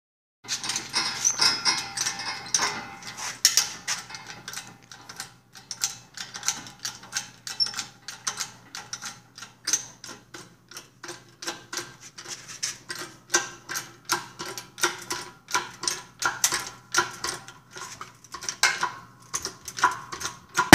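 Hydraulic bottle jack in a shop press being pumped by its handle, a steady run of clicking, knocking strokes about two a second as it presses a riding mower wheel hub off a rusted axle. It ends in a sudden loud bang as the load gives way, which the worker takes for the pressing socket going through.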